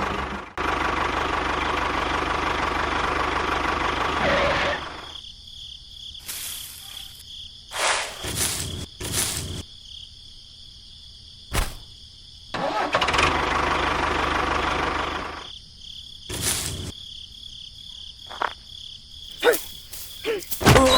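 Small engine of a miniature tractor running steadily. It then cuts to short bursts of engine noise between quieter stretches, with a few brief chirps near the end.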